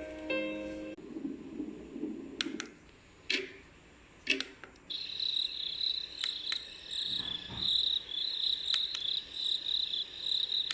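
White-noise sound machine playing its recorded summer-night cricket sound: high, pulsing chirping that sets in about five seconds in and continues steadily. Before it, the last of some piano music fades out and a few sharp clicks sound.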